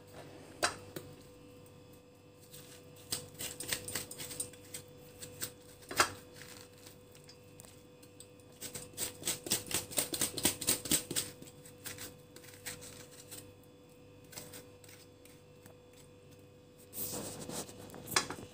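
Kitchen knife cutting and scraping raw pumpkin by hand over a ceramic plate: scattered sharp clicks and taps, with two runs of rapid ticking, the longer one about halfway through, and a brief rustle near the end. A faint steady hum runs underneath.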